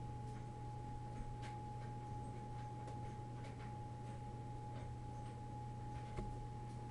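Steady low background hum with a thin, steady high whine and a few faint ticks. No sound comes from the swallowing snake itself.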